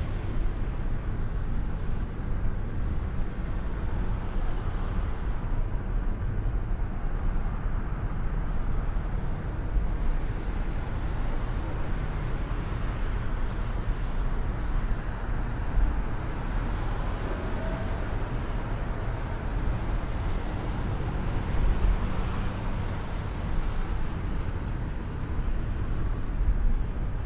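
Steady low rumble of a car driving on a snowy road, engine and tyre noise heard from inside the car, with a few brief swells.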